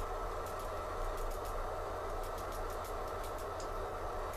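Light hammer taps on hot steel against an anvil, several a second in irregular clusters, as a forged handle end is shaped. A steady hum runs underneath.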